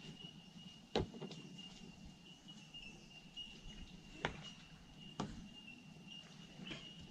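Three sharp knocks, about a second in, past four seconds and past five seconds, over a faint steady high-pitched whine.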